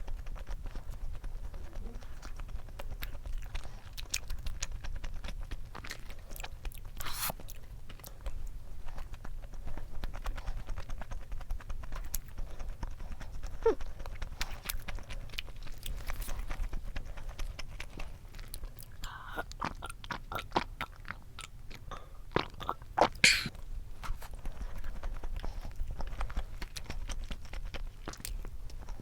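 Close-up chewing and crunching of food, a dense run of small irregular crunches and mouth clicks with a few sharper ones, the loudest about 23 seconds in.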